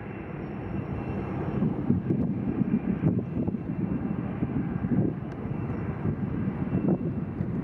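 Strong wind buffeting the microphone: a loud, irregular low rumble that rises and falls in gusts.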